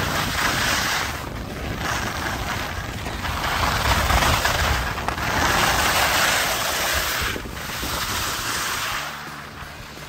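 Wind rushing over the microphone, a loud hiss that swells and eases in waves every few seconds.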